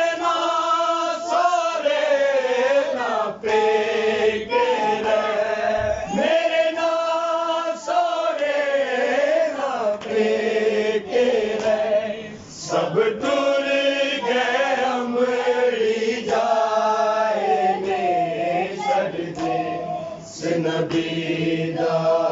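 A group of men chanting a Punjabi noha, a Shia lament, together in unison with voices only and no instruments, the melody rising and falling in long sung phrases.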